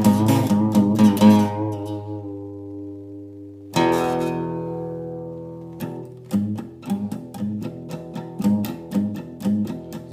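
Acoustic guitar strummed in a quick rhythm that stops about a second and a half in, leaving the chord to ring and fade. A single chord is struck just before the halfway point and left to ring, then the rhythmic strumming starts again about six seconds in.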